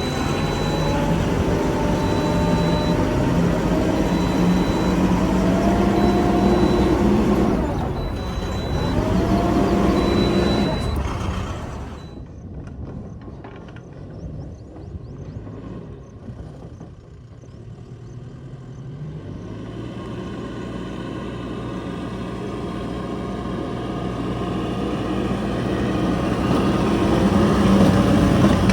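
Mahindra backhoe loader's diesel engine running under load and revving up in steps, with a reversing alarm beeping at an even pace for the first ten seconds or so. About twelve seconds in the engine drops back and runs quieter, then climbs steadily again toward the end.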